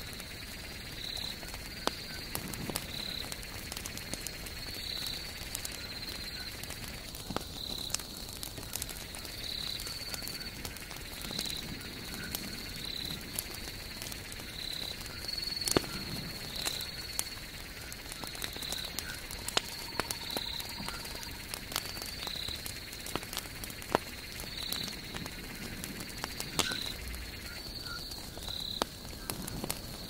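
Log campfire burning down to embers, crackling with sharp irregular pops, the loudest about halfway through. Behind it a night animal gives short high chirps at a steady pace of about one a second.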